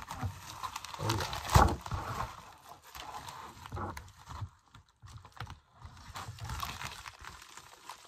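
Crinkling and rustling of a USPS Priority Mail flat rate envelope being handled and opened, with a sharp crackle about one and a half seconds in, then quieter handling.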